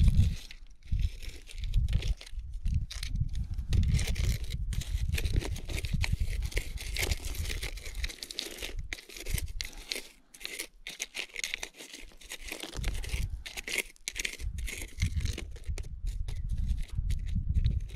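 Gritty scraping and crunching of dry, sandy soil being dug and raked through by hand while a metal target is pinpointed, with a low rumble that comes and goes.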